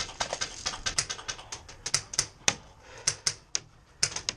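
Airsoft firefight: a rapid, irregular string of sharp clicks and snaps from airsoft guns shooting, several a second, some louder and closer than others.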